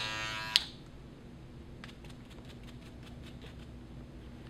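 Electric hair clipper buzzing, switched off with a click about half a second in. Then a run of faint light ticks, roughly four a second, in the middle.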